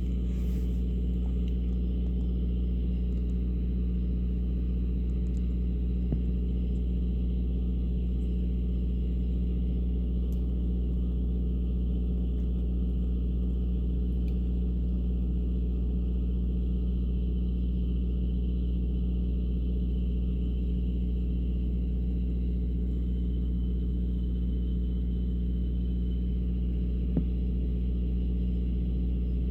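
Steady low rumble, like a vehicle's engine and road noise heard from inside, unchanging throughout, with a faint click about six seconds in and a sharper tick near the end.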